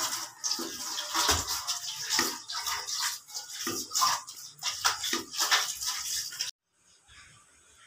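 Thin kadhi, a yogurt and gram-flour mixture, is scooped up with a metal ladle and poured back into a metal pot from a height, splashing and gurgling in repeated pours. It cuts off abruptly about six and a half seconds in.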